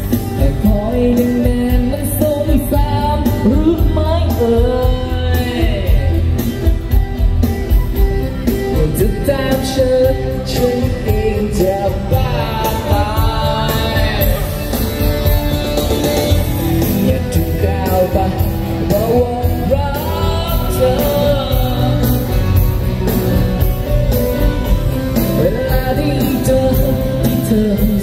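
A live band playing: a man singing into a microphone over electronic keyboard and acoustic guitar, with a steady beat, amplified through a PA in a large hall.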